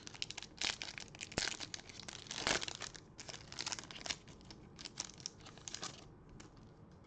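Foil wrapper of a baseball card pack being torn open and crinkled: a rapid run of crackles, loudest a little over two seconds in, that stops about six seconds in.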